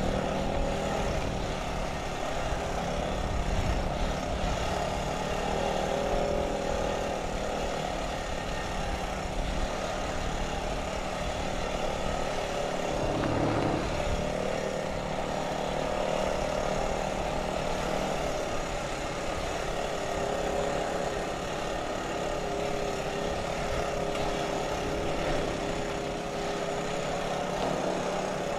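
Honda ATV engine running steadily as the quad rides along a dirt trail, with a brief rise and fall in engine pitch around the middle.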